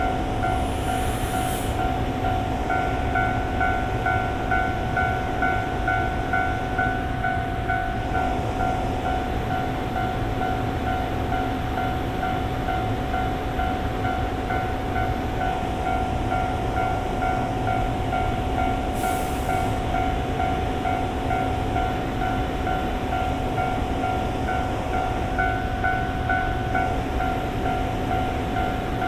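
EF65 electric locomotive standing with its auxiliary machinery running: a steady hum and whine made of several held tones, with a higher tone pulsing for a few seconds early on and again near the end. Two brief hisses of air, about a second in and about nineteen seconds in.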